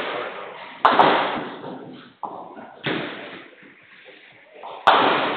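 Ninepin bowling balls landing and rolling on the lanes and knocking into pins: four sudden loud hits, each trailing off over about a second in the hall.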